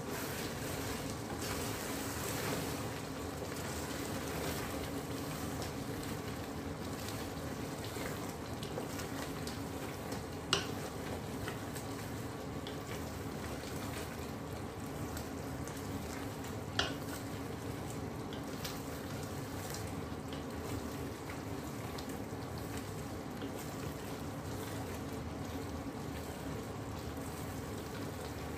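Chicken curry in ghee masala simmering and bubbling in a steel pot while a spoon stirs it, with a steady hum underneath. Two sharp knocks, about ten and seventeen seconds in.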